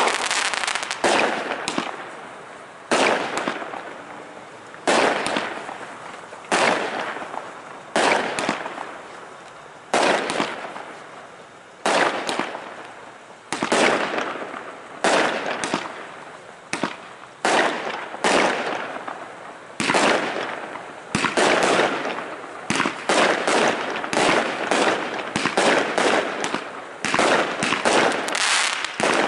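Aerial fireworks shells bursting with sharp bangs about every one to two seconds, each bang trailing off in an echo. The bangs come faster and overlap in the last part.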